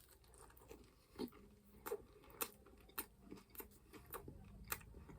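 A person chewing food close to the microphone, with faint wet mouth clicks about every half second.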